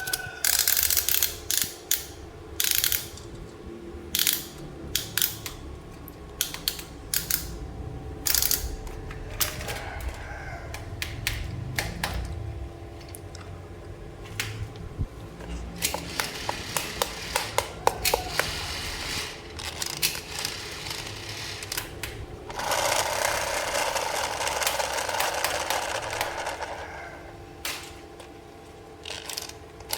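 Plastic toy parts and packaging being handled: sharp clicks and snaps, a rapid ratchet-like run of clicks just past the middle, and about four seconds of crinkly rustling a little after two-thirds through.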